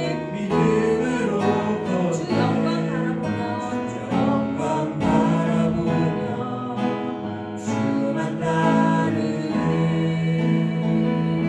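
Worship song: voices singing over guitar accompaniment.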